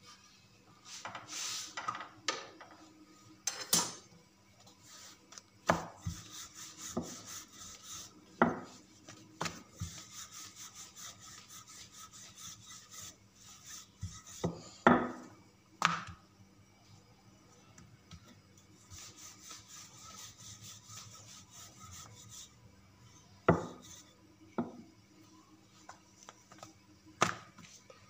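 Metal spatula scraping and tapping on a tawa griddle with a paratha cooking dry on it, no oil yet. Spells of light scraping are broken by about ten sharp knocks scattered through, under a faint steady hum.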